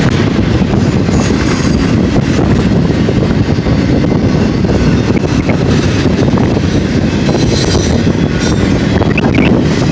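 Double-stack container train's well cars rolling past close by at speed: a loud, steady rumble of steel wheels on the rails.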